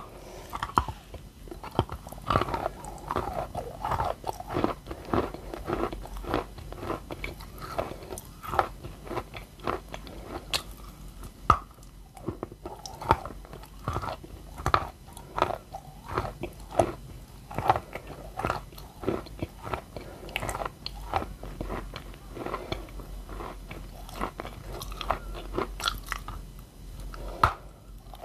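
Close-miked biting and chewing of a soaked white block of edible chalk-type mineral: wet crunches and crackles bite after bite, with mushy chewing between.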